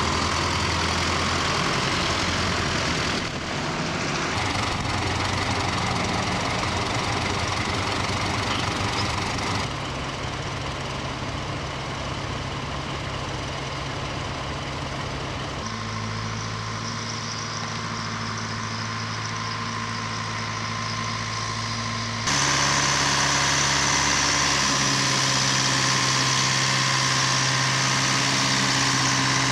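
Heavy diesel engines running steadily: a mobile crane's engine working a boat lift, then a farm tractor's engine, the engine note changing abruptly several times.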